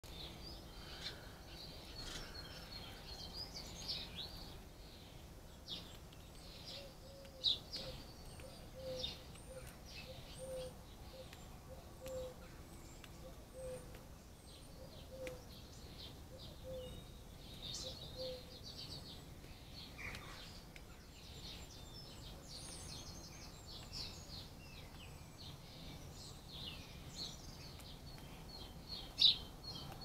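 Songbirds chirping and trilling throughout in an early-morning dawn chorus. A run of about a dozen soft, evenly spaced low hoots sounds through the middle, and a couple of sharp taps stand out, the loudest near the end.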